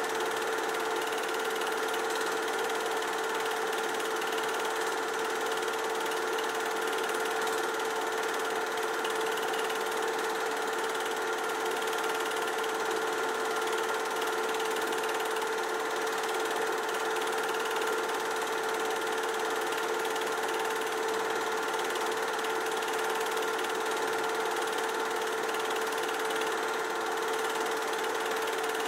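Film projector running steadily: an even mechanical whir with a constant pitched hum that does not change.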